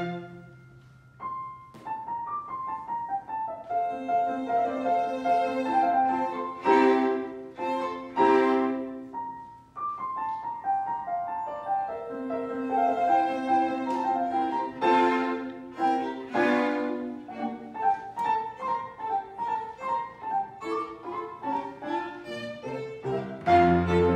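Live instrumental classical music at a recital, recorded on a phone. A held chord dies away at the start, and after a short pause the playing starts again about a second in as a flowing melody over chords. Heavier low notes come in near the end.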